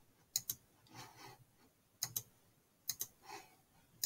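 Computer mouse button clicking as points are placed with the drawing tool: each click a quick press-and-release pair, three times about a second apart, with another starting right at the end.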